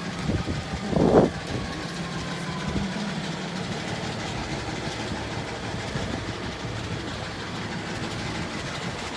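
City street traffic: a steady vehicle engine hum, with a short louder burst about a second in.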